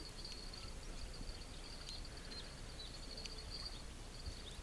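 Night insects trilling: a steady high-pitched trill that breaks off briefly near the end, with scattered faint chirps over low background noise.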